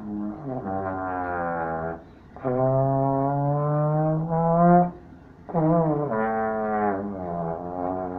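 Trombone played by a beginner: four long, low notes with short breaks between them. Some notes bend in pitch as they start, and the longest drifts slowly upward.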